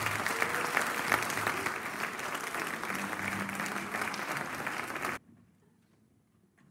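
Audience applauding, a dense patter of many hands clapping, which cuts off abruptly about five seconds in and leaves near silence.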